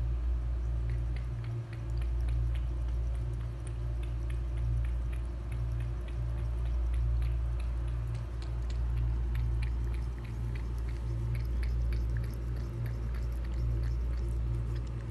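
Cat lapping water from a plastic tub: quick wet clicks at about three to four a second, over a steady low hum.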